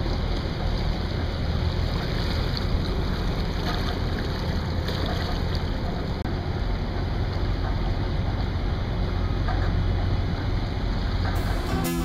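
Steady low rumble of a sailing yacht motoring at low speed, with water washing along the hull and wind on the microphone. Music comes in near the end.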